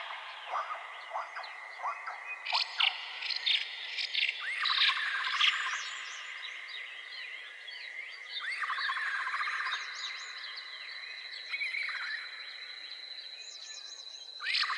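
Several birds chirping and trilling in repeated bursts over a steady high-pitched insect drone.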